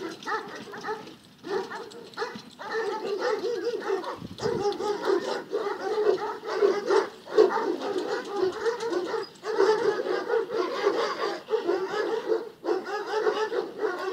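Bucovina shepherd dogs barking and yelping almost without pause, many short calls overlapping, with only brief lulls.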